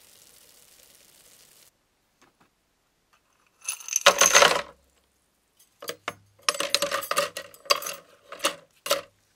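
Small metal radiator parts (screws, nuts and brass fittings) poured out of a cup into a plastic tub of liquid, clattering and splashing about four seconds in. Then a run of clinks and rattles as the parts are moved about in the tub. It opens with a faint fizzing hiss of soap foam.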